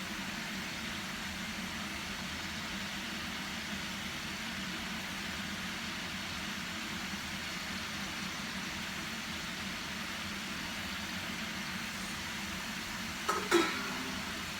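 Maida dough diamonds (namak pare) deep-frying in hot oil: a steady sizzle over a low, steady hum. Near the end there is a brief, loud clatter of a couple of knocks.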